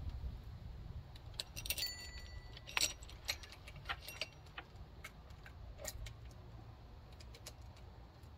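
Saw chain and bar being handled: a run of metallic clinks and jingles, some briefly ringing, thickest in the first half and sparser toward the end.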